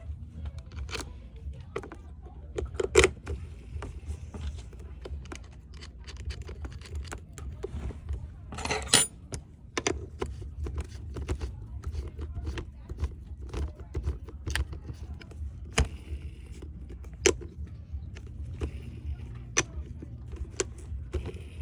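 Scattered metallic clinks and clicks of tools and roller-skate parts being handled during a repair, over a steady low hum, with a short rougher noise about nine seconds in.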